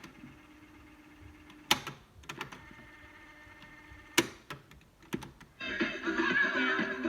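Sharp clicks of the Philips ARC 16 radio-cassette recorder's switches being worked, four or five clicks spread over about five seconds. Its music is cut off for this stretch and comes back loudly through the set's speaker about five and a half seconds in.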